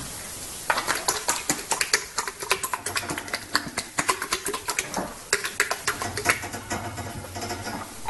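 A rapid, irregular run of light clicks and taps, starting about a second in.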